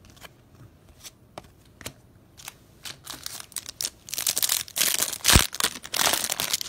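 A few light clicks of cards being handled, then from about four seconds in the crinkling and tearing of a clear plastic wrapper as a trading card pack is pulled open, with one sharp snap a little past five seconds.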